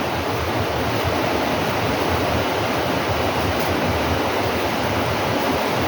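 A steady, even rushing noise with no separate events in it.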